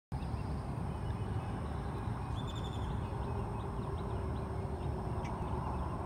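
Outdoor background noise: a steady low rumble with a few faint high bird chirps about two and a half seconds in and again a little later.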